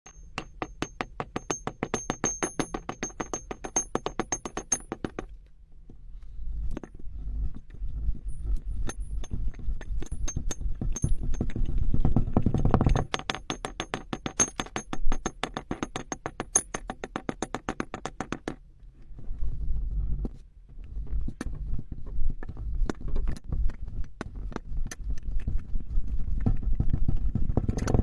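Kinetic sand being cut and squeezed: a rapid run of crunchy crackles in several long stretches, with short pauses between them.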